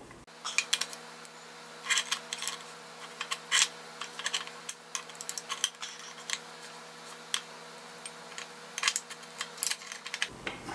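Steel gears and shaft of a Triumph Spitfire 1500 gearbox's mainshaft gear train clicking and clinking lightly against each other and the casing as the gear train is worked into the case by hand. The clicks are short and irregular, several in quick runs and then a pause.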